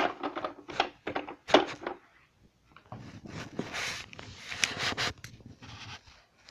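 Objects being handled up close: a quick run of light knocks and clicks, then a few seconds of rustling and scraping.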